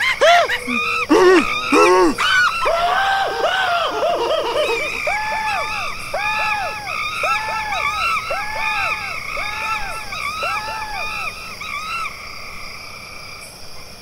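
A voice screaming in a string of yells that each rise and fall in pitch. They are irregular at first, then settle into about six evenly spaced yells roughly a second apart, growing fainter toward the end.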